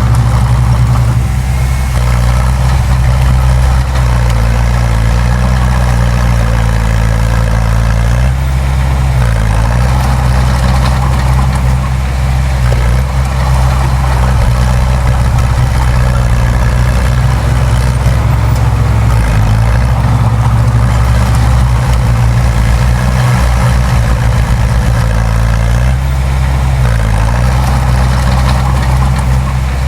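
Heavy diesel engine of a bulldozer running steadily. Its pitch dips briefly and comes back up a few times: about a third of the way in, around two-thirds, and again near the end.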